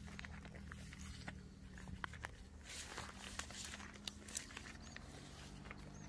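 Footsteps through grass and low scrub: irregular rustling and crackling as the walker's legs push through the vegetation.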